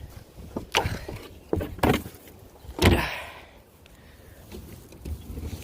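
A few sharp knocks and scrapes as a fallen plastic trash bin and its spilled contents are handled, the loudest thump about three seconds in, over low wind rumble.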